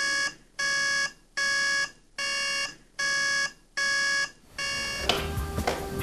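Digital bedside alarm clock beeping: a run of identical electronic beeps, each about half a second long, about one every 0.8 seconds. The beeping stops about five seconds in.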